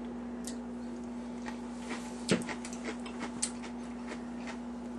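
Soft clicks of a metal fork against a glass jar as sauerkraut is taken out to taste, over a steady low hum; the sharpest click comes a little over two seconds in.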